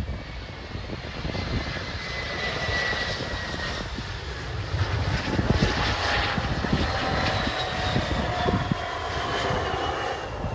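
Bombardier CRJ regional jet's rear-mounted GE CF34 turbofans whining as it flies past low on landing, the whine falling slowly in pitch as it goes by, over a steady engine roar. Gusty wind rumbles on the microphone.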